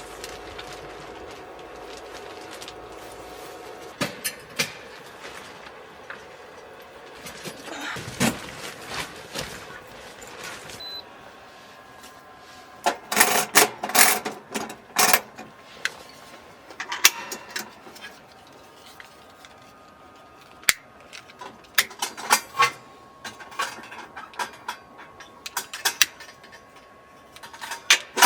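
Scattered clicks, clinks and knocks of small hard objects being handled, with a quick cluster about halfway through and more through the second half.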